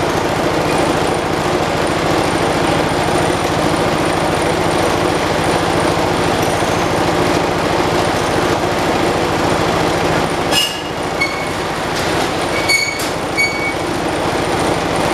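The Kohler single-cylinder engine of a 1979 John Deere 214 lawn tractor runs steadily with the tractor standing still. It is running smoothly, with little bounce now that the rubber has been fixed. A few brief metallic clinks come about two-thirds of the way in and again a couple of seconds later.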